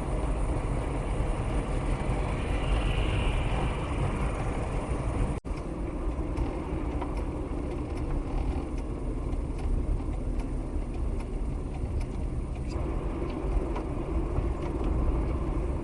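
Steady road and engine rumble inside the cabin of a moving 1994 Mercury Topaz. The sound drops out for an instant about five seconds in.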